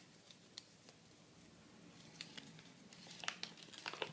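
Faint crinkling and clicking of plastic toy packaging being handled and opened, sparse at first and busier from about three seconds in.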